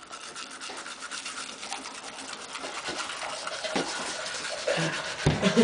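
Manual toothbrush scrubbing teeth up close, a rapid run of scratchy back-and-forth bristle strokes. A bump sounds near the end.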